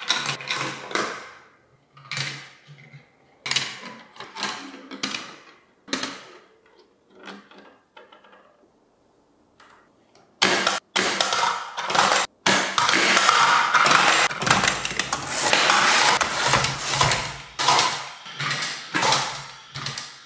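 Marbles rolling and clacking through a plastic VTech Marble Rush track. For the first ten seconds there are separate clacks and short rattles that die away. Then, from about ten seconds in, a dense, continuous clatter follows as many marbles run at once.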